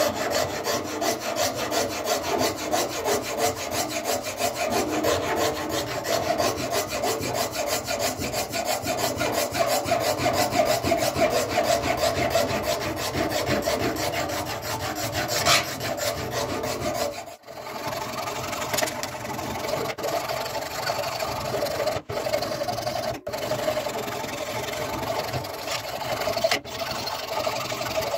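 Flat file rasping rapidly back and forth over a cleaver's wooden handle scales, shaping the wood. The strokes are continuous, with a few brief breaks in the second half.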